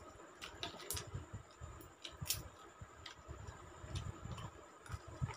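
Faint, scattered light clicks and soft taps of a steel spoon and a brush against a plastic dish and skin as a face pack is spread on, with a few low handling thuds between them.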